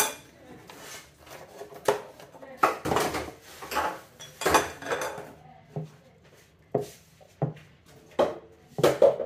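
Metal fork clinking and scraping against a glazed ceramic serving dish and plate while it is worked through steamed vermicelli to loosen it: irregular clinks with a few short scrapes.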